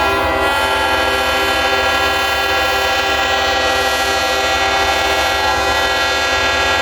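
Several locomotive air horns held at once in a loud, steady, unbroken chord of overlapping tones, over a low rumble.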